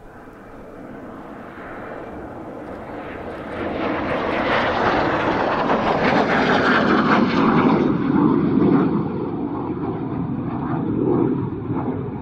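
Small jet trainer aircraft flying low past, its jet noise growing from faint to loud over the first few seconds, loudest past the middle, then easing a little as it moves away.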